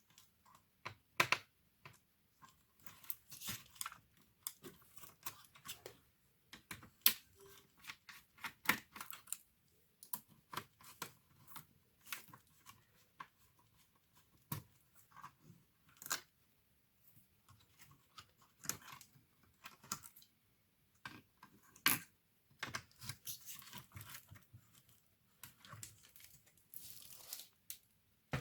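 Irregular clicks, taps and short scrapes of hand work on a laptop's plastic case and parts, with a few louder clicks among softer rustling.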